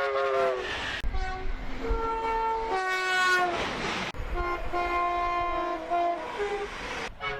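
Train horns sounding in a series of blasts, each alternating between a high and a low tone, joined by abrupt cuts about a second in, around four seconds, and near the end. The first blast slides down slightly in pitch.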